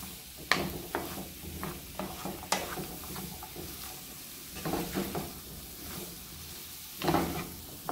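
Diced zucchini, onion and pancetta sautéing in oil in a frying pan with a steady sizzle, while a wooden spoon stirs and scrapes through them, giving scattered clicks and a few louder scrapes against the pan.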